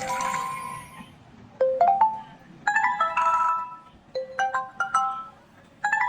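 A bright chime melody: short groups of quickly rising bell-like notes, a new group starting about every one and a half seconds, like a ringtone.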